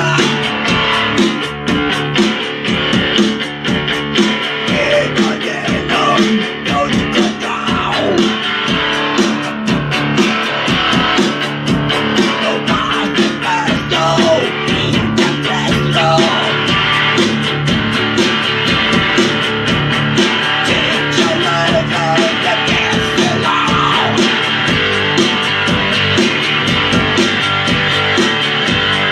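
Guitar-driven rock music with a steady beat.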